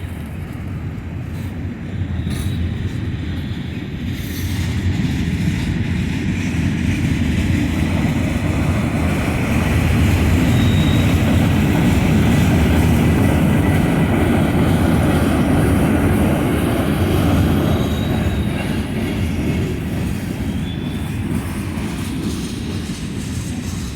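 Freight train cars rolling slowly past, a steady heavy rumble of wheels on rail that grows louder through the middle and eases off toward the end. A few brief, faint, high wheel squeals come through now and then.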